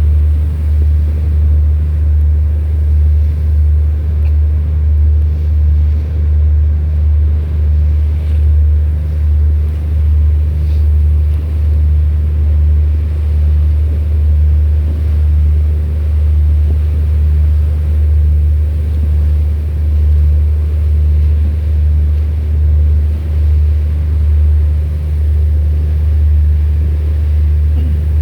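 Deep, steady drone of a ship's engine on the water, pulsing slightly in loudness.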